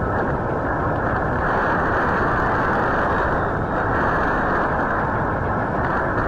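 Tornado-force wind rushing steadily, heard through a doorbell camera's microphone, which makes it dull and muffled.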